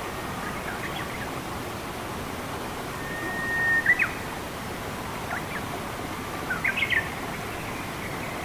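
Steady rush of running water in a forest, with songbirds calling over it: one held whistle about three seconds in that swells and breaks into quick notes, then a few short chirps and a cluster of chirps near the end.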